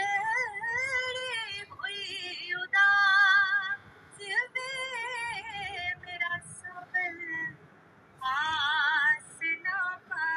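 A woman singing solo without accompaniment, in long melismatic phrases with a wide vibrato on held notes. She pauses briefly twice between phrases.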